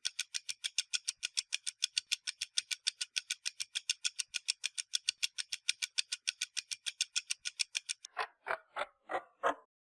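Rapid, even mechanical ticking, about six ticks a second, that gives way near the end to a few slower, lower clicks.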